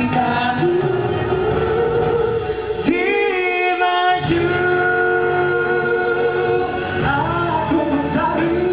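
Two men singing karaoke into microphones over a recorded backing track, holding long notes; about three seconds in one note wavers with a wide vibrato.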